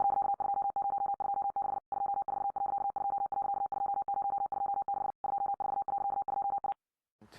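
An electronic beep tone at one steady pitch, stuttering rapidly on and off for about seven seconds, then cutting off abruptly near the end.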